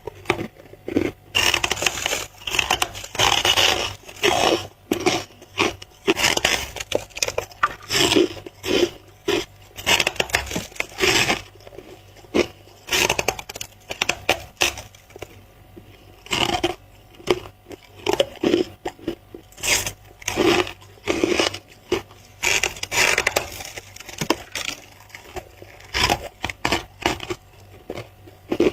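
Close-miked bites and chewing of squeaky white freezer-frost ice, a long run of crunches coming in irregular clusters about a second apart.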